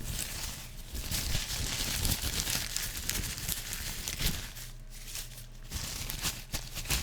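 Headband fluttered and rubbed right against the microphone, a dense crinkly rustling full of rapid little clicks that swells and eases.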